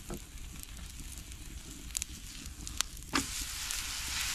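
Butter sizzling on a flatbread cooking on a hot iron griddle, with a few sharp clicks; the sizzle grows louder about three seconds in.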